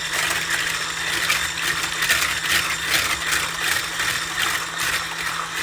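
Electric stick blender with a whisk attachment running at a steady speed, beating eggs in a plastic bowl: a steady motor hum with the whisk's rattle against the bowl. It cuts off abruptly at the end.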